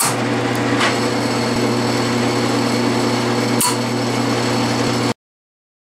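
Metal lathe running in reverse at slow speed with the half nut engaged, a steady mechanical whine from its drive and gears as stainless steel wire winds onto a mandrel, with a few sharp clicks. The sound stops abruptly about five seconds in.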